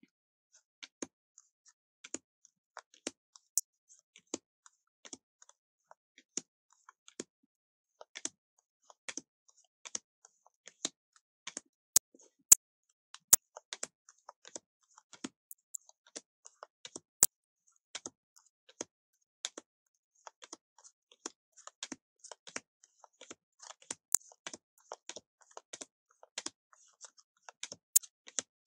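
Tarot cards being flipped through one at a time and laid onto a pile: a long run of sharp, irregular clicks and snaps of card stock, one to a few a second.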